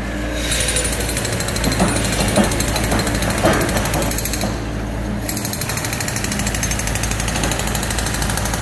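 Rapid, steady jackhammer-type hammering on concrete over the low, steady diesel running of a Hyundai HX235 excavator, with a few louder knocks of concrete in the first few seconds. The hammering stops briefly about halfway, then carries on.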